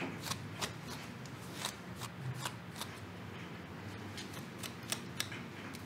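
Hairbrush strokes through a girl's hair: short scratchy brushing sounds, about three a second at an uneven pace.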